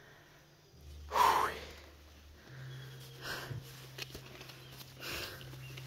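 A man breathing hard while walking up a steep trail: a loud, noisy breath about a second in, then softer breaths about every two seconds.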